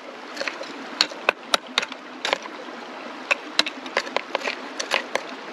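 Gravel and small stones clicking irregularly into a plastic gold pan as the load of water and material from a Keene hand-pump suction dredge drains out. A steady rush of flowing water runs underneath.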